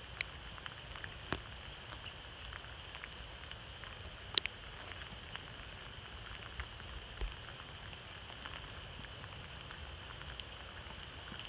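Light rain: a steady soft hiss with scattered sharp drop clicks, the loudest about four seconds in.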